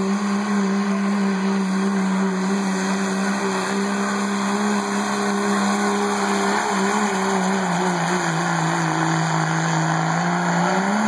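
Diesel pickup truck engine at full throttle pulling a weight sled, a loud steady drone with heavy exhaust noise. Its pitch sags slowly as the pull goes on, then rises briefly and cuts off near the end.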